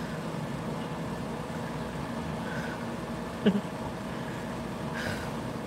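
Steady room hum with faint steady tones, broken about three and a half seconds in by one short chuckle.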